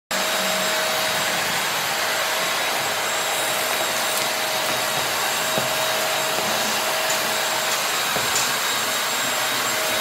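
Dashclean K31 single-phase industrial dust extractor running at full suction through a floor tool drawn over concrete. It makes a steady rush of air with a constant high whine.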